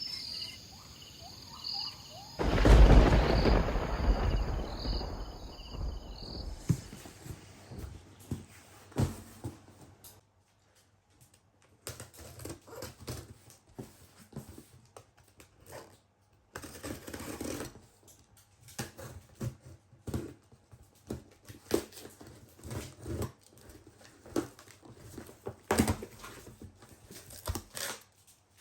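Unboxing handling noise: a cardboard box and metal aerosol shave cream cans being handled, with scattered knocks, clicks and rustles. A loud burst of noise lasting a few seconds comes about two seconds in.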